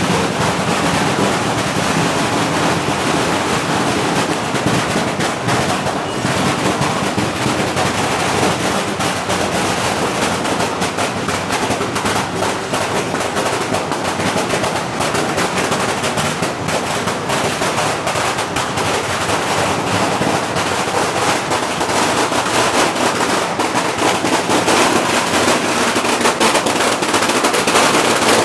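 A long string of firecrackers going off, a dense, unbroken rattle of rapid bangs.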